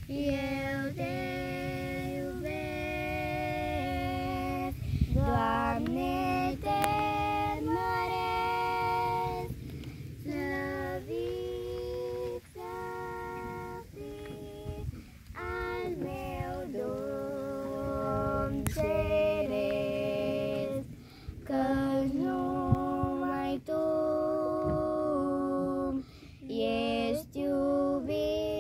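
Young girls singing a song in long, held notes, phrase after phrase with short breaks between them, over a low rumble.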